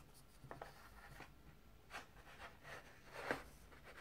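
Faint rustling and scraping of a paper CD booklet being unfolded by hand, a few soft strokes with the loudest about three seconds in.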